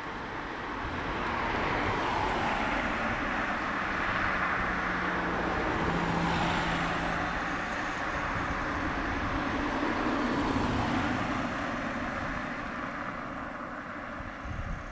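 Manx Electric Railway tram No 7 and its trailer running past on the line: a steady rumble of wheels on rail that swells over the first two seconds, with a steady motor hum midway through, then slowly fades.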